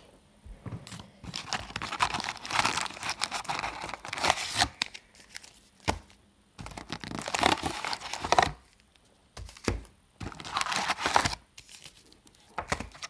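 Foil-wrapped trading card packs crinkling as they are lifted out of a cardboard hobby box in handfuls and set down. There are three main bursts of rustling, with a couple of dull knocks in the pauses between them.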